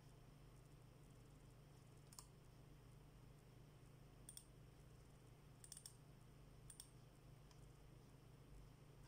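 Faint computer mouse button clicks: a few single clicks spread out, with a quick double click in the middle, over a low steady hum.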